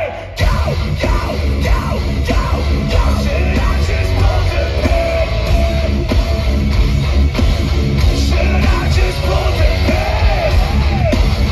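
A metalcore band plays live, loud and heavy on the low end, with distorted guitars, drums and shouted and sung vocals. The music drops out for a moment at the very start and then crashes back in at full volume.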